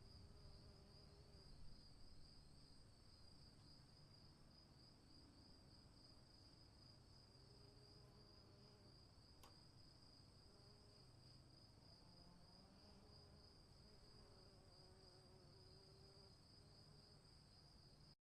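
Faint, steady chirring of insects, a high pulsing drone, with a low rumble dying away over the first couple of seconds and a single faint click about halfway through.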